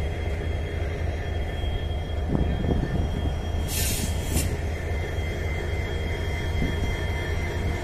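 WDP4D diesel-electric locomotive running steadily while standing, with a low rumble and a steady high whine. There is a short burst of hiss about four seconds in.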